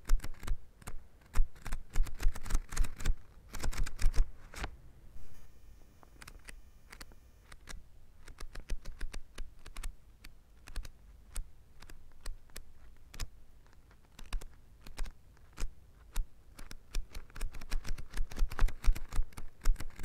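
Paper pages of a book being flipped over one after another, a rapid run of soft flicks and rustles. It thins out for a few seconds after the start and gets busier again near the end.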